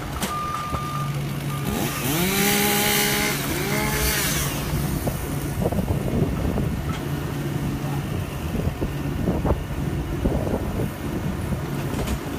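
A chainsaw revs up twice in quick succession, its pitch rising each time, over a truck engine running steadily underneath. A short high beep sounds near the start, and scattered knocks and clicks follow the revs.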